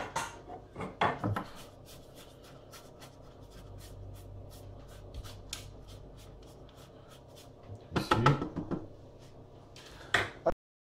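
Spatula scraping and knocking inside a Thermomix TM5's stainless-steel mixing bowl, scraping grated chocolate down from the sides. There are loud knocks at the start, softer scraping and ticking in the middle, and another burst of knocks about eight seconds in.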